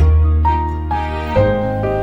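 Soft instrumental background music: a sustained bass note under plucked or keyboard notes changing about twice a second.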